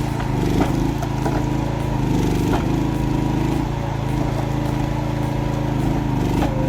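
A machine's engine running steadily, with a few sharp cracks over it.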